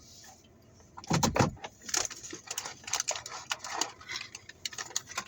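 Paper bag and food wrappers rustling and crinkling in irregular crackles, with one loud bump about a second in.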